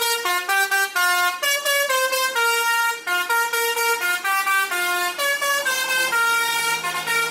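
Bus 'telolet' horn, a Basuri V multi-tone horn, playing a tune: loud, reedy notes stepping quickly from pitch to pitch, a few notes a second, without a break. A low steady hum joins under it near the end.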